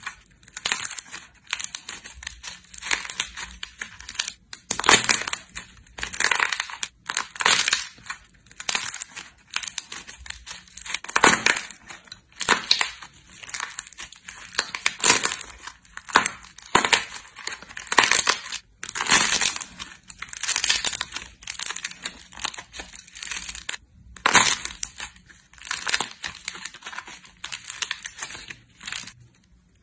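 Slime being squeezed and pressed by hand, making irregular crackling, squelching bursts about one or two a second, with a few brief silent breaks.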